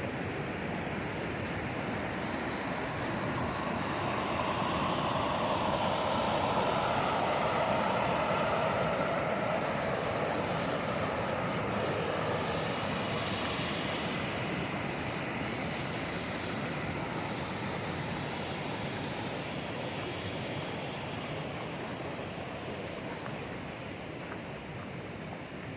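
Creek water rushing over a small dam: a steady rush that grows louder a few seconds in and eases off toward the end.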